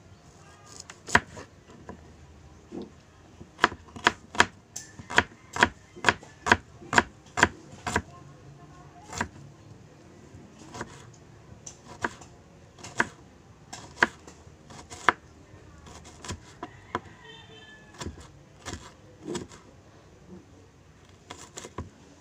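Kitchen knife chopping a red onion on a plastic cutting board. The blade knocks sharply against the board at an uneven pace, in a quick run of about two strokes a second for a few seconds, then more spaced out.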